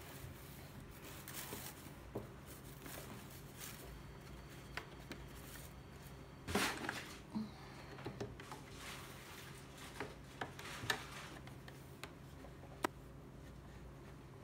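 Black dress fabric rustling and sliding as hands arrange it under a home sewing machine's needle, with small clicks and taps. A brief louder rustle comes about six and a half seconds in.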